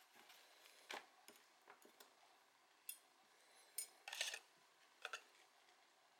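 Faint, scattered clicks and rustles of hand-handling, about half a dozen short ones, with a denser cluster a little past four seconds in, over near silence.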